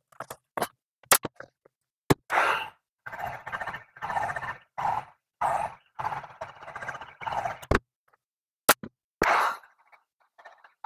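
Handheld upholstery stapler firing staples through vinyl into a plywood stool base: a handful of sharp shots at irregular gaps, with longer scraping noises in between as the cover is pulled and smoothed.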